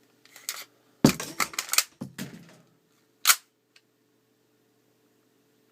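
Tokyo Marui Desert Eagle .50AE gas-blowback airsoft pistol: a quick run of clicks and clacks as a fresh magazine goes in, then a single sharp shot a little over three seconds in.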